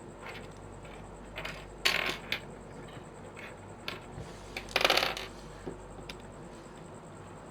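Plastic pieces of a 5x5 puzzle cube clicking and clattering as they are fitted together by hand: scattered sharp clicks, with two louder clattering bursts about two and five seconds in.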